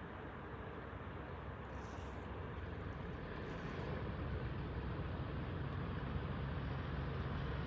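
Distant low rumble of a pair of Class 37 diesel locomotives, whose English Electric V12 engines draw slowly nearer and grow gradually louder.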